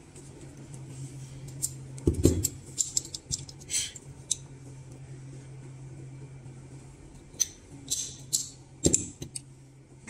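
Handling clicks and knocks of a metal fiber optic cleaver and small connector parts on a desk: the cleaver's clamps and lid snapping, with a heavier thump about two seconds in and another near the end. A steady low hum sits underneath.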